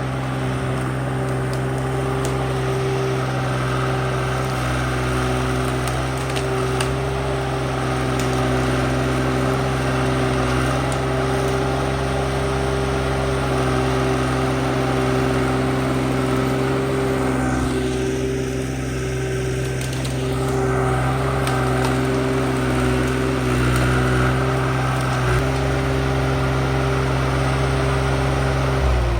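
Skid steer engine running steadily at high revs under work, its pitch dropping sharply near the end as it throttles down toward idle.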